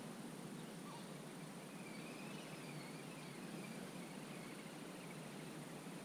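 Faint wetland ambience: a steady, even hiss of outdoor background noise. A faint, wavering high-pitched call rises out of it about two seconds in and lasts a second or two, with a single short chirp just before.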